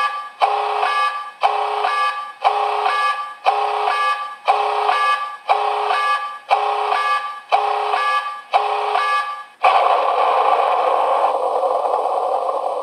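Electronic reminder alarm from a small sound-module speaker, the close-the-bag reminder of an insulated delivery bag: a pitched beep repeating about once a second, changing about ten seconds in to a continuous buzzing tone.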